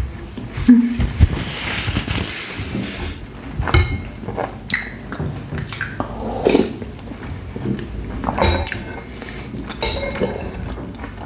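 A metal spoon clinking against a porcelain soup bowl several times as soup is spooned up, with close eating sounds in between.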